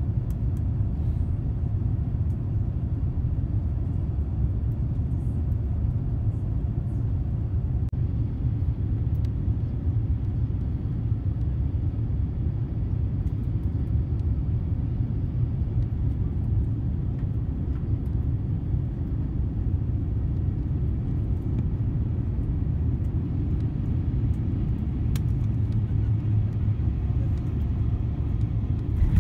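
Steady low rumble of cabin noise inside an Airbus A350-1000 on final approach, from its Rolls-Royce Trent XWB engines and the airflow, heard from a window seat over the wing.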